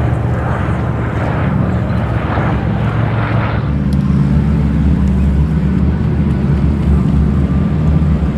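Piston-engined propeller aircraft running with a steady low drone that grows louder about four seconds in.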